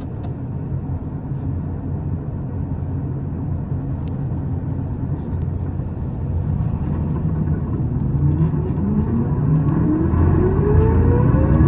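Isuzu Erga city bus (PKG-LV234L2) with its six-cylinder diesel heard from inside the cabin: a steady low engine rumble, then from about eight seconds in the bus accelerates and a whine rises steadily in pitch as it gathers speed.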